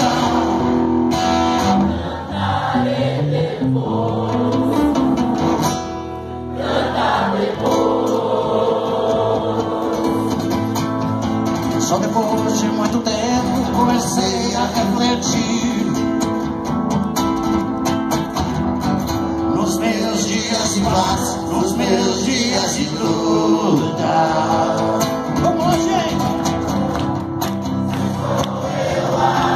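Live acoustic rock performance: guitar played with a male lead singer, and more voices joining in the singing.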